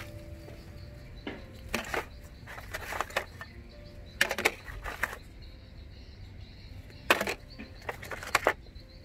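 Short bursts of rustling and clattering as broken smartphones are picked up and shifted among glass shards and plastic rubbish, several times over a low steady rumble.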